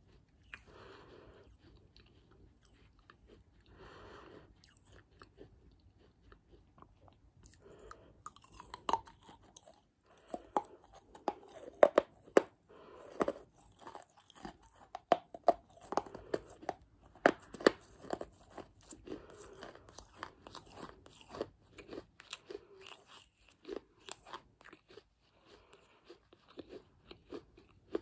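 Close-miked chewing of hard baked clay pieces: crisp crunches and cracks, soft and sparse at first, then thick and loud from about eight seconds in, thinning out near the end.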